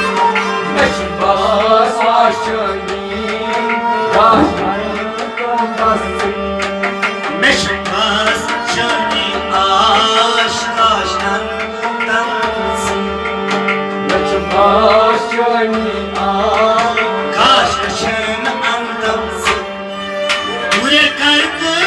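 Devotional song: tabla drumming under a steady held drone, with a wavering voice singing phrases that come and go.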